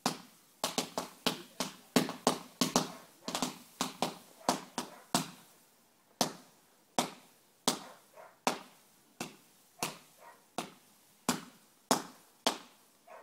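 Fireworks going off as a rapid string of sharp bangs, each with a short echo. The bangs come several a second at first, then settle into an even beat of about three every two seconds.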